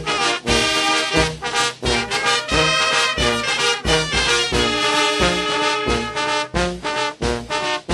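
Mexican municipal brass band playing: trumpets and trombones carry a melody over a steady bass beat of about two low notes a second.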